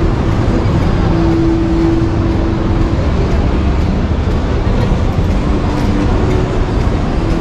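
Steady, loud rumbling background noise, with a faint humming tone that comes and goes.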